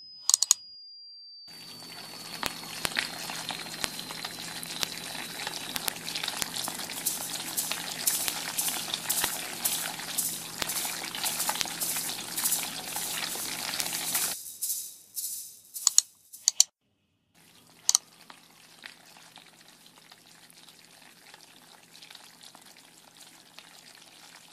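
Dense crackling and clicking noise, like frying, over a low steady hum, growing louder; a thin high whistle slides slowly down in pitch during the first few seconds. The crackle cuts out about 14 seconds in, a few sharp clicks follow with a brief silence, then a fainter crackling carries on.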